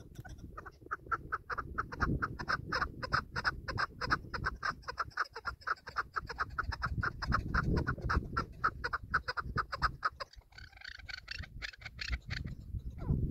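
Chukar partridge calling: a long run of quick clucking notes, about five a second, changing to a harsher, scratchier call about ten seconds in. Wind rumbles on the microphone throughout.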